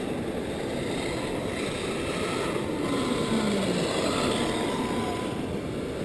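Traxxas X-Maxx 8S electric RC monster truck, with its brushless motor, driving back across packed beach sand after a speed run, under a steady rush of wind noise. A faint whine falls in pitch near the middle as the truck slows.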